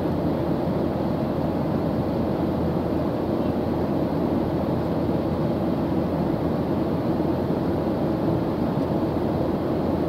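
Jet airliner cabin noise in cruise: an even, deep rush of engines and airflow, steady with no changes.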